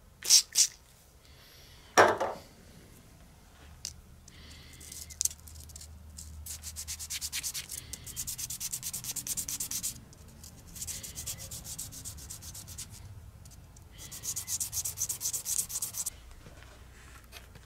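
Small metal part rubbed back and forth by hand on wet abrasive paper (wet sanding), in three runs of quick strokes at about five a second. A few sharp knocks come in the first two seconds and are the loudest sounds.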